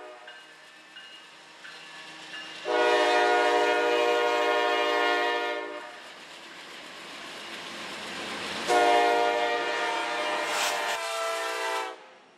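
Diesel freight locomotive horn sounding two long blasts of about three seconds each, with the rumble of the passing train between them.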